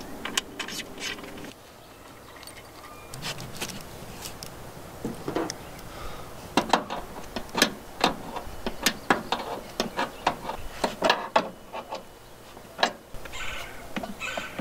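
Irregular metal clicks and taps of a wrench working brass flare nuts, as copper refrigerant lines are tightened onto the service valves of a Pioneer mini-split outdoor unit. The clicks come thickest in the second half.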